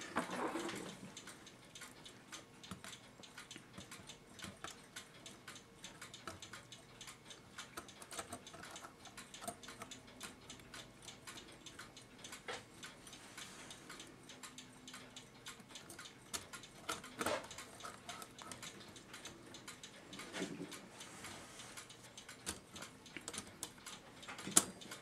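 Faint, irregular light clicks and taps of brass clock-movement parts being handled, as the top plate of a c1915 New Haven tambour clock movement is lowered and worked over the wheel pivots, with a few sharper clicks along the way.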